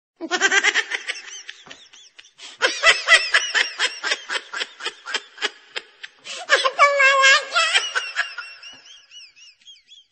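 A man laughing hard: long runs of quick, high-pitched cackles that trail off into faint wheezes near the end.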